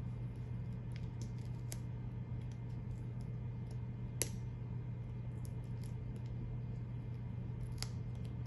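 Light scattered ticks and clicks of an X-Acto knife tip and vinyl stencil pieces being picked at and pressed onto a leather sneaker, with one sharper click about four seconds in and another near the end. A steady low hum runs underneath.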